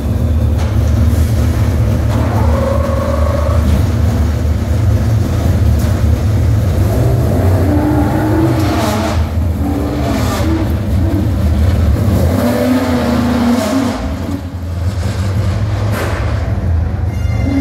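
Le Mans prototype race car engines running in the pit lane: a steady, loud low rumble, with an engine note that rises and falls through the middle as the cars are revved and pull away.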